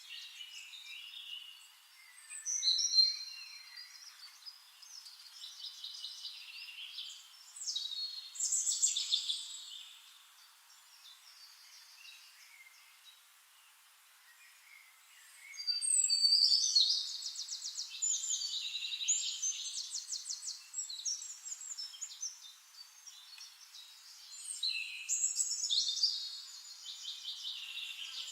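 Birds chirping and trilling in bursts of rapid, high notes, with a quieter lull partway through.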